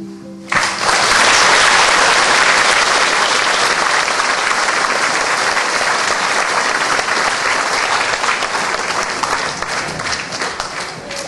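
Audience applauding, breaking out about half a second in as the last held note of the song ends, and thinning into scattered claps near the end.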